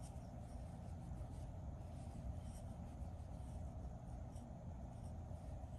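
Faint rustle and scratch of yarn being drawn through stitches with a crochet hook, over a steady low room hum.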